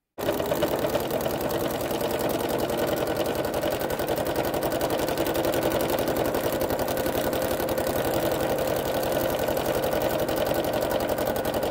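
Baby Lock Soprano sewing machine running steadily at speed for free-motion stitching, its needle moving up and down in a fast, even rhythm.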